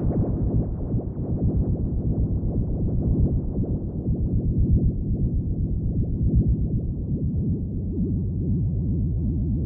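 Low, dense electronic drone with a rapid pulsing flutter, the kind of space-sound sonification the video presents.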